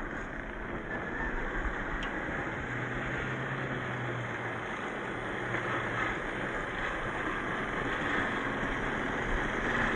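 Two Traxxas TRX4 scale RC crawlers with 550 motors driving slowly over loose gravel: a steady crunch of tyres on stones, with a faint low motor hum a few seconds in.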